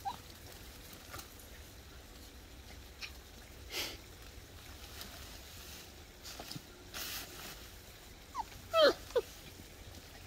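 Australian Shepherd puppies yipping: three short high yips close together near the end, the loudest one falling in pitch, with a couple of brief rustles earlier.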